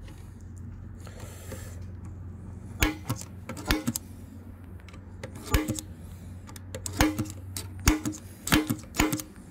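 Steel center punch clicking against a rivet pin in a Shimano CS-HG50-10 cassette's cog spider, driving the pin out: about a dozen sharp metallic clicks with a short ring, in singles and quick pairs, starting about three seconds in.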